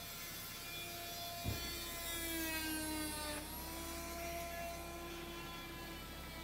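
Motorboat engine running at low speed, a steady hum with a pitched whine. The whine's pitch slides slowly down and then jumps back up about three seconds in. A single short knock sounds about one and a half seconds in.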